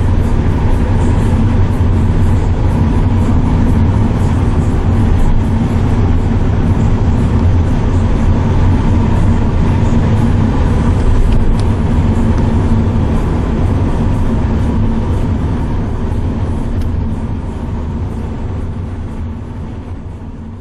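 Car driving, steady engine and road noise heard from inside the cabin, fading out near the end.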